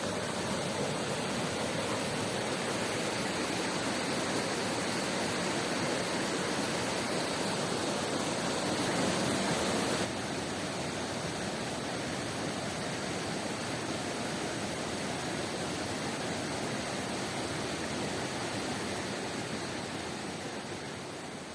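Steady rushing water of a waterfall and river, an even hiss with no pauses. It steps down a little in level about ten seconds in and fades out near the end.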